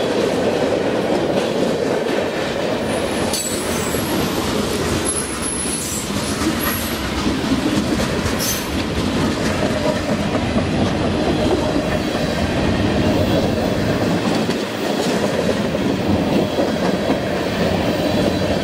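Freight cars of a Norfolk Southern manifest train (covered hoppers, a tank car, gondolas) rolling past close by: a steady rumble and clatter of steel wheels on the rails. A few brief high wheel squeals come between about three and seven seconds in.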